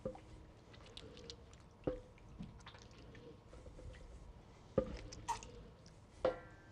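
Fresh mozzarella curd being pressed and kneaded in hot water in a bowl: soft wet squishing and dripping. Several sharp knocks against the bowl ring briefly, the loudest about two, five and six seconds in.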